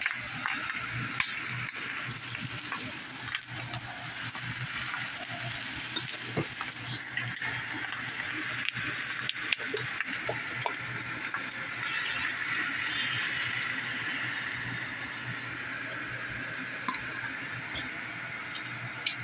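Tofu, egg and seaweed sizzling in a frying pan as they are stirred, with sharp clicks of the utensil against the pan. The sizzle swells for a few seconds about twelve seconds in.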